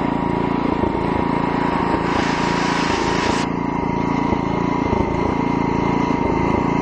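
Single-cylinder 7 hp Briggs & Stratton engine on an old Massey lawn tractor running steadily, with a thin steady whine over it. A brief rush of hissy noise comes about two seconds in.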